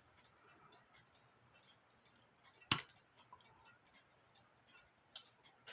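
Quiet handling of small music box parts and tools on a work surface: faint scattered ticks, one sharp click nearly three seconds in, and a smaller click near the end.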